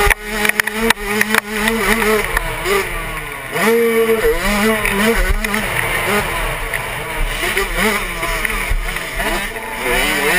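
Suzuki 85cc two-stroke motocross bike engine revving hard under the rider, its pitch climbing and dropping again and again as it accelerates and shifts down the track. There are a few sharp knocks in the first second and a half.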